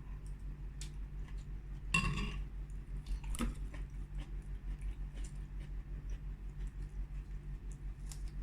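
Spoon clinking against a bowl twice, about two seconds in and again a second later, with small clicks of eating over a steady low pulsing hum.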